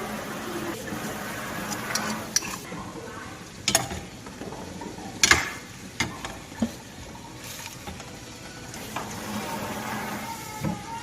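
Food sizzling in a frying pan while it is stirred, with several sharp clinks of a utensil against the pan, the loudest about halfway through.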